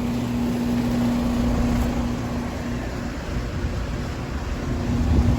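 Outdoor air-conditioner condensing unit with a Copeland scroll compressor running: a steady compressor hum over the rush of the condenser fan. The hum weakens for a moment past the middle, then comes back.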